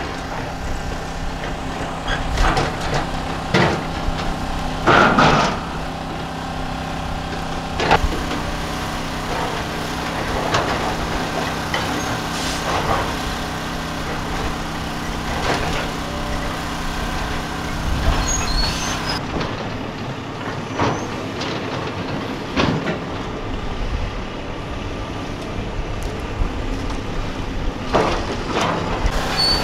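Heavy diesel demolition machinery, a hydraulic excavator among it, running steadily, with repeated cracks and crashes of splintering timber and falling debris as a wood-framed building is torn down. The loudest crashes come about five and eight seconds in.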